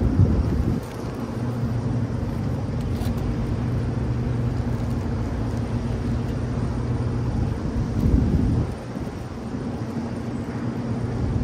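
Steady low mechanical hum outdoors on a rooftop, with two short louder swells of low noise: one right at the start and one about eight seconds in.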